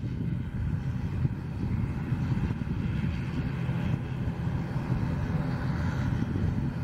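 Boeing 737 MAX 8's CFM LEAP-1B turbofans running at low taxi power: a steady rumble with a fainter whine above it that grows slightly stronger near the end.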